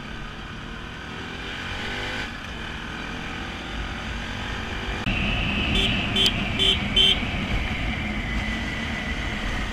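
Motorcycle riding along the road, its engine running under a steady rush of wind noise. A horn beeps four short times about six seconds in.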